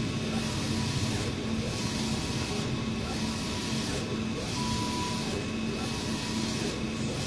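Allwin eco-solvent inkjet printer printing: the print-head carriage shuttles back and forth across the media, a rushing hiss that swells with each pass, about one pass every second and a half, over a steady machine hum.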